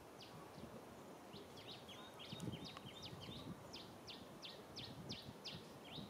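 A small bird chirping in short, high, falling notes: a jumbled flurry of them in the middle, then a steady run of about three a second near the end. Soft low rustling runs underneath.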